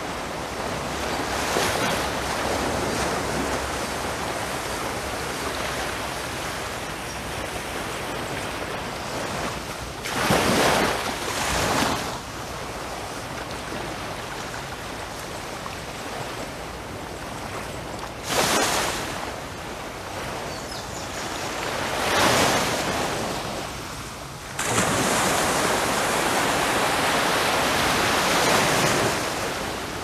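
Small waves lapping onto a sandy shore and washing back, surging louder every few seconds. The longest and loudest rush comes in the last few seconds. Tiny rocks rattle in the receding water.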